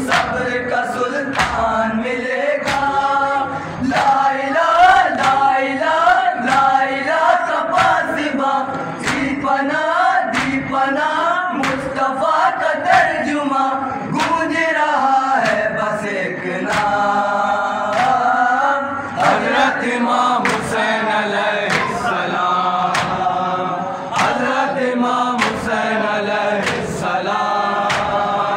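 A group of men chanting an Urdu nauha, a lament for Imam Hussain, in unison through an amplified microphone. A regular beat of sharp hand slaps, the chest-beating of matam, keeps time with the chant.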